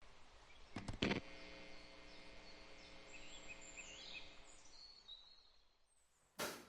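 Acoustic guitar chord struck once about a second in and left to ring, fading slowly, with faint high bird chirps in the background. A second strum comes near the end, as the song begins.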